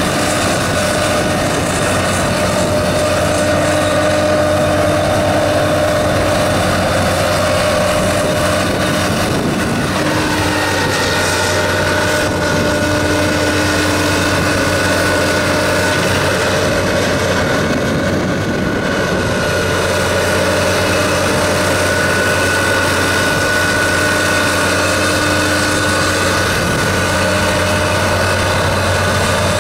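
Nuhn Lagoon Crawler's 275 hp Cummins diesel engine running steadily as the amphibious agitation boat drives through manure slurry, a loud, even drone with a few held tones that shift slightly in pitch about ten seconds in.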